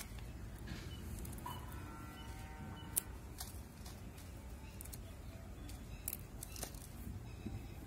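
Scattered dry crackles and clicks of whole dried red chillies being broken and torn apart by hand, the sharpest click about three seconds in, over a steady low rumble.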